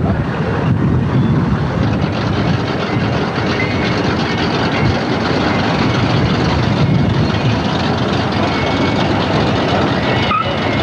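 Engines of big American cars running at low speed as they drive slowly past one after another, a steady low-pitched engine noise.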